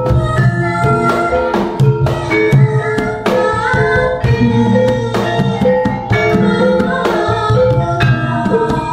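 Javanese gamelan ensemble playing. A kendang hand drum beats out the rhythm under the ringing struck notes of saron metallophones and bonang gong-kettles.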